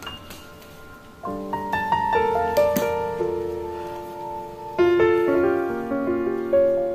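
Background piano music: gentle notes and chords that ring and fade, with new chords coming in about a second in and again near five seconds.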